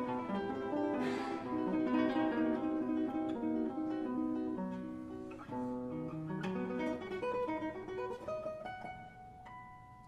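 Background music: a plucked acoustic guitar playing a melody note by note, growing quieter over the last few seconds with a few notes left ringing.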